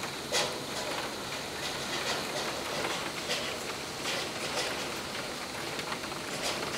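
Monsoon rain falling steadily, with irregular sharp ticks of drops striking close by.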